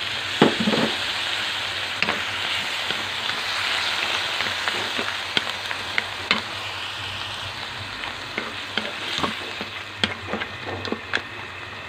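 Balay shells, vegetables and ground meat sizzling in a hot wok while being stir-fried, with scattered scrapes and taps of a wooden spatula against the pan, more frequent near the end.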